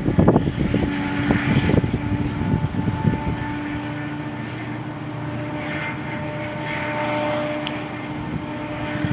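MARC MPI MP36PH-3C diesel locomotive and train pulling away, a rumble that fades over the first few seconds into a steady engine hum.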